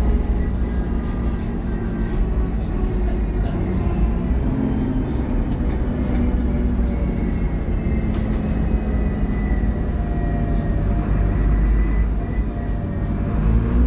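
Dennis Trident double-decker bus running under way: a heavy engine drone with pitches that drift up and down as it pulls, and a thin high whine through the middle.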